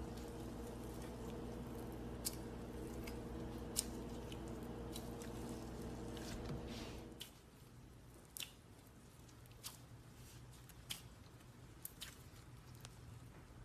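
Slime being squished and pressed, giving scattered sharp clicks and pops. A steady background hum stops about halfway through.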